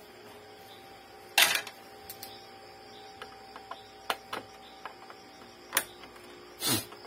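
Scattered knocks and clicks of a screwdriver against the plastic casing of an opened Epson L3110 printer, the loudest about a second and a half in and several lighter ones after, over a faint steady hum.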